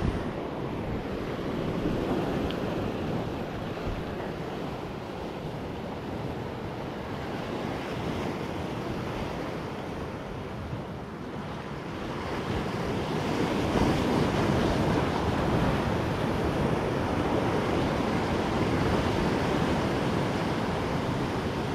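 Sea surf washing against the shore, with wind buffeting the microphone; the waves swell louder about halfway through.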